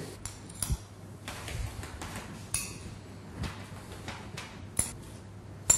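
A metal spoon clicking against a small glass bowl and scraping over toasted bread as chopped garlic is spread on the slices: a few light, scattered clicks, the sharpest near the end.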